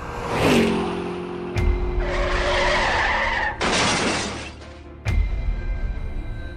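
Road-accident sound effects over background music: a sudden hit, a tyre skid screech, a crash with shattering glass, and a last heavy thud.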